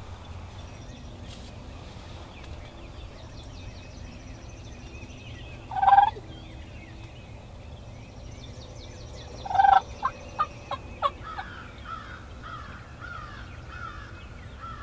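Wild turkey gobblers gobbling twice, a loud rattling call about six seconds in and another near the ten-second mark that breaks into a few quick trailing notes.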